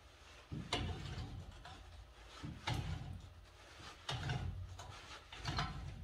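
Pipe wrenches straining at a tight threaded boiler pressure relief valve: four pulls about a second and a half apart, each a clunk followed by metal scraping and grinding as the jaws bite and the fitting resists.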